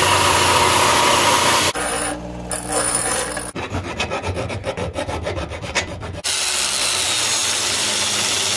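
Abrasive chop saw cutting through steel pipe, breaking off about two seconds in. Then quick rasping strokes of a hand file on the pipe clamped in a vise, about five a second, and from about six seconds in an angle grinder grinding the pipe's outside down to a smaller diameter.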